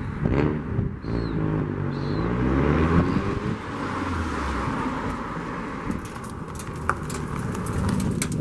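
Mazda MX-5's four-cylinder engine accelerating, its pitch rising steadily for about three seconds, then running on at a steady cruise with road noise.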